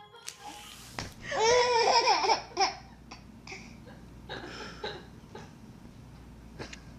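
A baby laughing: a loud run of belly laughs about a second in, then a few shorter giggles. A brief hiss comes just before.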